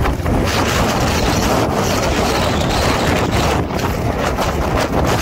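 Steady wind buffeting the microphone of a motorcycle moving at road speed, over the motorcycle's engine running.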